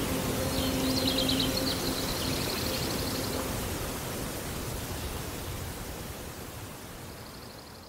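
Steady water-like hiss, slowly fading out, with a held low music drone that stops about three seconds in and a faint high chirping trill over the first few seconds.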